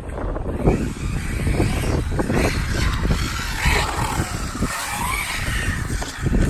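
Arrma Typhon radio-controlled car's electric motor whining up and down in pitch as it accelerates and slows, with its tyres hissing on tarmac. Irregular low rumbles run under it.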